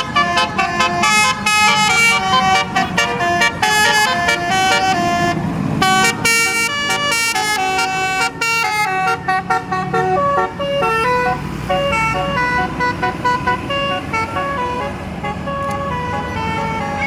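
Telolet basuri multi-tone bus horn playing a fast melody of stepped notes, the notes thinning out after about ten seconds.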